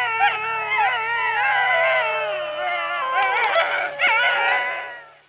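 A pack of wolves howling together: several long, wavering howls overlapping and sliding in pitch, fading out near the end.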